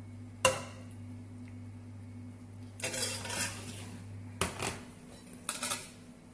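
A spoon clinking and scraping against a pot and plate as sauce is served: one sharp clink about half a second in, a scrape around three seconds in, then more clinks near the end.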